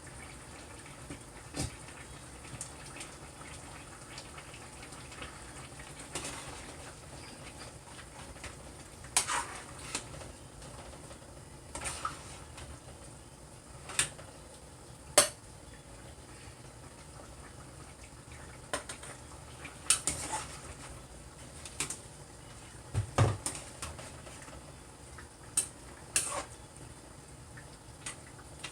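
A spoon clinking and knocking against a cooking pot while stewed chicken is stirred: a dozen or so sharp, irregular clinks over a faint steady hiss.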